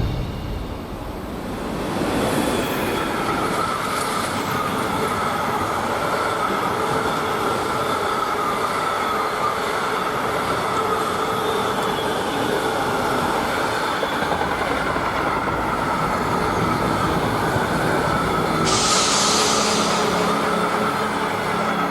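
Train hauled by a Bombardier Traxx electric locomotive passing, a steady rolling rumble of wagons with a high squealing tone running through it. A brief hiss sounds near the end.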